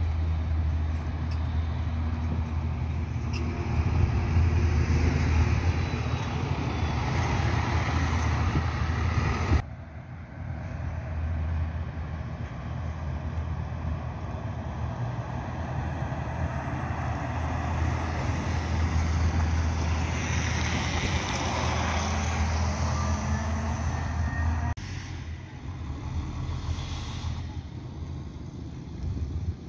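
City buses running and driving past: a steady low engine hum with tyre and traffic noise. The sound changes abruptly twice, about a third of the way in and near the end, where takes are cut together.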